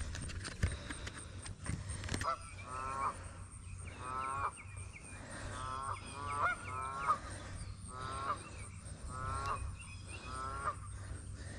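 Geese honking: short, nasal pitched calls, a dozen or so, coming singly and in quick clusters from about two seconds in. A few light knocks sound in the first couple of seconds.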